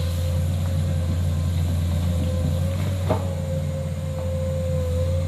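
Komatsu hydraulic excavator's diesel engine running steadily under load while the bucket works in mud: a constant low hum with a steady whine over it. One short knock comes about three seconds in.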